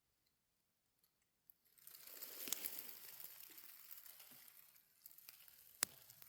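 Near silence with a few faint ticks, then about two seconds in a steady dry rustling begins, broken by scattered sharp crackles, one standing out near the end.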